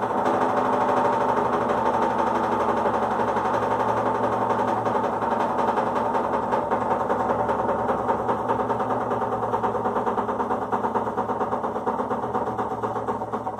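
A machine running steadily: an even hum with a fast, fine rattle, easing a little near the end.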